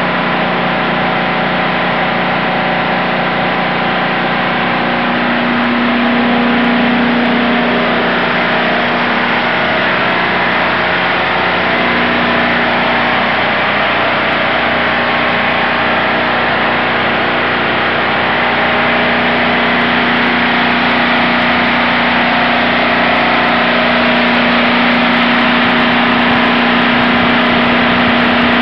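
Large standby generator set running steadily under a load test, a loud continuous engine drone with a steady hum held at one pitch.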